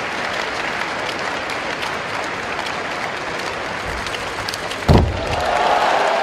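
Steady arena crowd noise, then about five seconds in a single heavy thud as three karateka drop together onto the competition mat on hands and feet in the kata Unsu's floor-drop move. The crowd noise swells a little after it.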